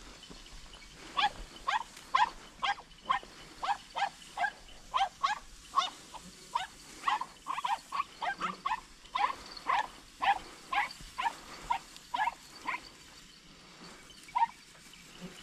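An animal's short, high yelping cries, each one falling in pitch, repeated about twice a second for some ten seconds, with one last cry near the end.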